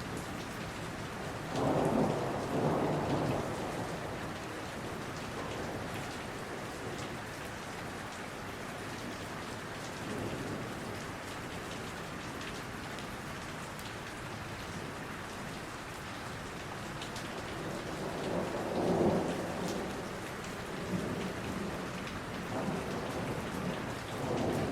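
Steady rain falling on a forest, with rumbles of thunder swelling about two seconds in and again near the end.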